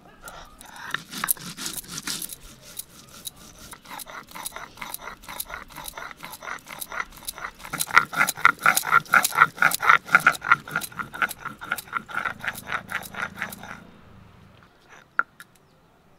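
Stone on stone: a hand-held grinding stone rubbed rapidly back and forth over a flat stone slab (shil-nora), grinding spice seeds with water into a wet paste. The scraping strokes come about three a second and stop about two seconds before the end, followed by a single click.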